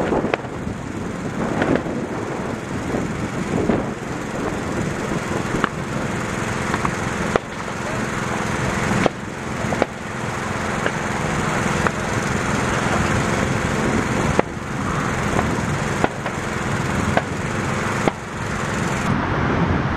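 Pulse jet engine on a control-line speed model running flat out as the model laps the circle, a steady loud buzz that swells and dips about every one and a half to two seconds with each lap.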